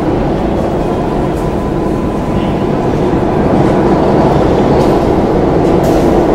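New York City subway train pulling out of the station: a steady, loud rumble with a faint hum, growing a little louder partway through, with a few sharp clicks near the end.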